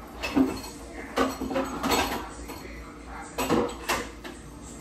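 Dishes and utensils knocking and clattering in a kitchen sink, in several short bursts.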